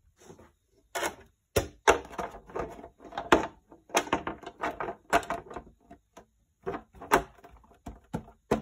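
Hard plastic RC truck body shell being handled and fitted over the Traxxas Revo chassis: irregular clicks, taps and knocks of plastic against plastic, with short quiet gaps between them.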